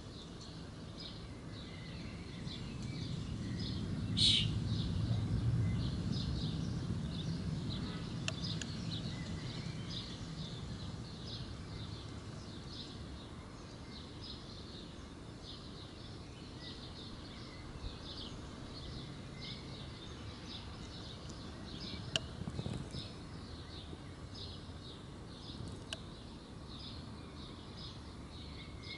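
Outdoor garden ambience: short high chirps repeating about two or three times a second, with one louder high call about four seconds in. A low rumble swells and fades between about three and eight seconds in.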